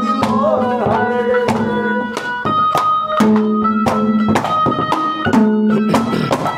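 Instrumental interlude of Haryanvi ragni music: drum strokes at a steady beat, about three a second, under held melody notes, with no singing.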